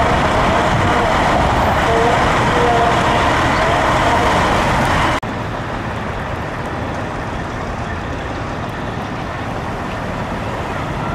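Fire trucks' diesel engines idling, a steady engine noise with no siren. About five seconds in the sound drops abruptly in level and turns duller.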